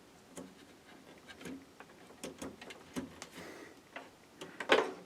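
Faint, scattered clicks and rustles of a power supply's SATA cable and plastic parts being handled and pushed into place inside a computer case, with a louder scrape near the end.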